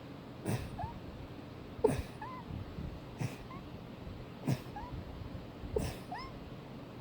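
A sneezing fit: five sharp sneezes at an even pace, about one every 1.3 seconds, with faint short squeaks between them.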